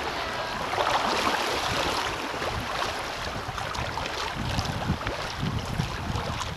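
Fast, choppy river water rushing and splashing around a kayak hull, with the splash of kayak paddle strokes dipping in. Wind gusts buffet the microphone, strongest near the end.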